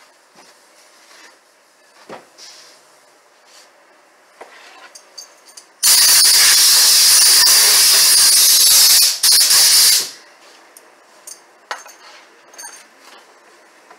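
Compressed air hissing loudly from an air nozzle for about four seconds. It starts suddenly about six seconds in, breaks off for an instant near its end, then stops abruptly. A few light knocks and clicks come before and after it.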